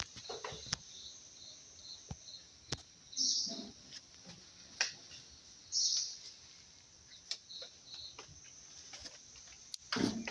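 Outdoor ambience of birds chirping now and then over a steady high insect drone, with scattered clicks and knocks.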